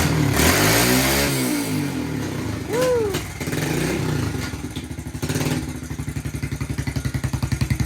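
2005 Kawasaki KLX110's single-cylinder four-stroke engine running, revved up and back down in the first two seconds, then settling into an even idle.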